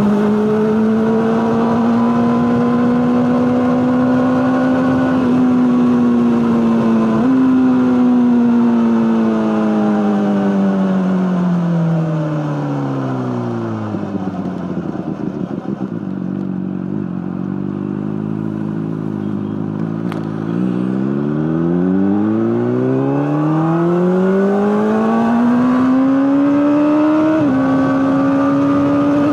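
Honda CBR600RR inline-four through an Akrapovic exhaust, running high and steady with a couple of small jumps in pitch. Over about seven seconds the engine note falls to a low drone, holds there for a few seconds, then climbs smoothly back up to a high pitch.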